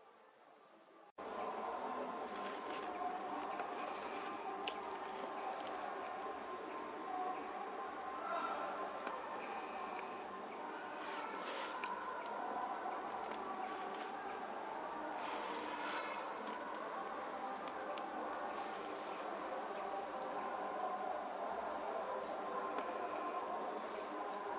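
Steady, high-pitched drone of an insect chorus over a dense layer of lower background noise. It starts abruptly about a second in.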